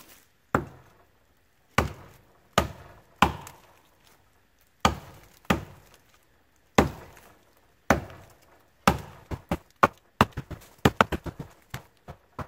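Axe chopping into a standing dead tree, dry seasoned wood taking sharp blows about once a second, then quicker, lighter strikes in the last few seconds.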